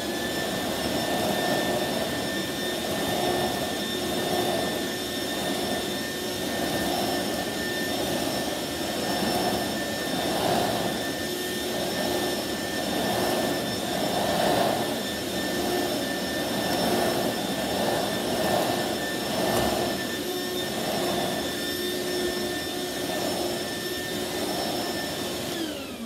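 Hoover Encore Quick Broom stick vacuum running on high speed: a steady motor whine that rises in pitch at the start as it is switched up. It swells and fades in a regular rhythm as the nozzle is pushed back and forth over carpet, and the motor winds down at the very end.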